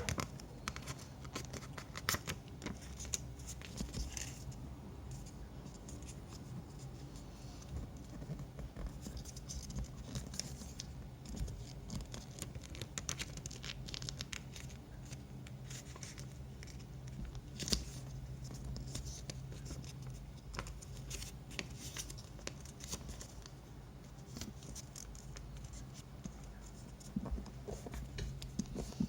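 Small sheet of paper rustling and crinkling in short irregular bursts as it is handled, folded and creased, over a low steady hum.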